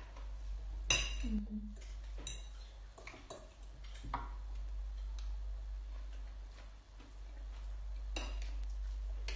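Metal spoon and fork clinking and scraping against a glass dish while eating: a few scattered clinks, the sharpest about a second in and another near the end. A steady low hum runs underneath.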